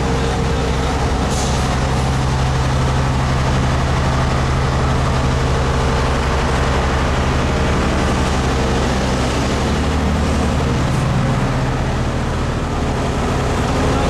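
Heavy diesel engines of a MAN tipper truck and an asphalt paver running steadily while the truck feeds the paver, with a short hiss about a second in.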